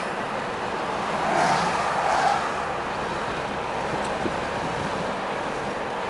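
Car driving on a paved street, heard from inside the cabin: steady road and engine noise that swells briefly between about one and two and a half seconds in.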